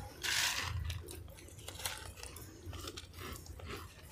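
Crunchy chewing of puffed rice mixed with chanachur (jhal muri), close to the microphone: loudest just after the start, then a run of softer crackly crunches.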